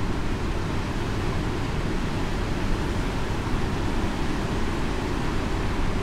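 Heavy ocean surf breaking and washing over a rocky shore: a steady, deep rush of waves with no single crash standing out.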